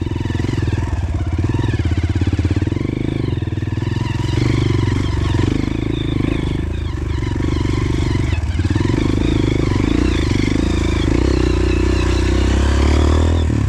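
Honda CRF150L trail bike's single-cylinder four-stroke engine running under way off-road, its pitch rising and falling as the throttle changes.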